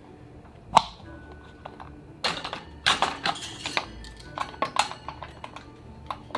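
Irregular clicks, knocks and light rattles of plastic parts and the wire bars of a hamster cage being handled and fitted, with the sharpest click just under a second in and a run of knocks in the middle.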